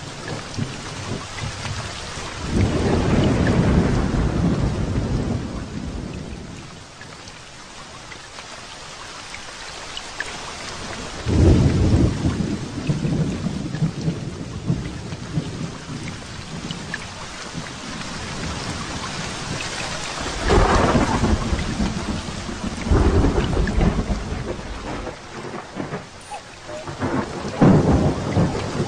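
Thunderstorm: several long, deep rolls of thunder swelling and fading over a steady hiss of rain.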